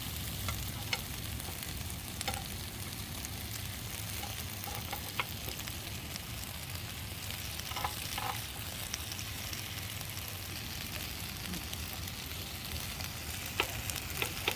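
Steak frying in a pan: a steady sizzle with a few short, sharp pops of spattering fat.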